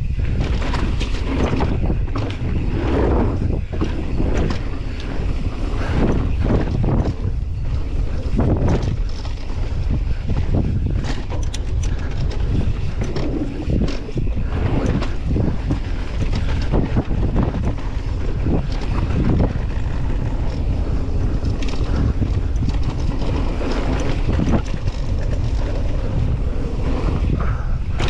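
Wind buffeting a helmet-mounted camera's microphone on a fast downhill mountain bike descent, with tyres rolling over a rough dirt and rock trail and frequent knocks and rattles from the bike over bumps.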